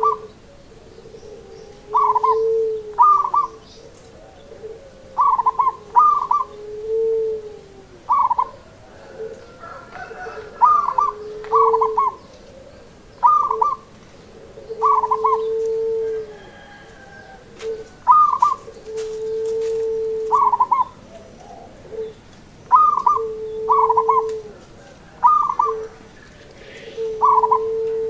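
Zebra dove (perkutut) cooing: pairs of short, higher coo notes alternating with long, lower held coos, repeated every second or two.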